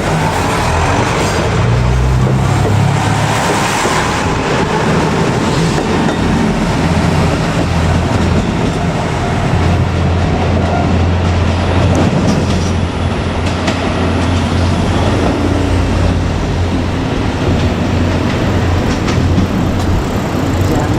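JR Kyushu KiHa 200 diesel railcar running on the line, its diesel engine and its wheels on the rails heard together. A steady low engine drone settles in about eight seconds in and holds.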